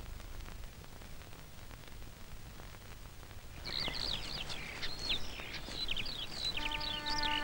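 Hiss and crackle of an old film soundtrack, then from about halfway in many birds chirping and twittering, quick high calls in close succession. Near the end, held notes of music come in under the birdsong.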